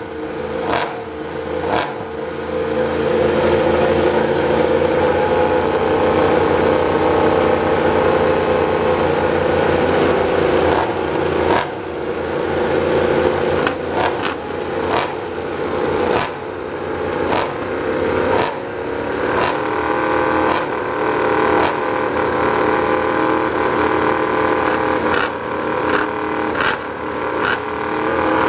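Yamaha YZR-M1 MotoGP bike's inline-four engine running on paddock stands while it is warmed up, a steady high idle. From about ten seconds in it is broken by short, sharp changes in the note.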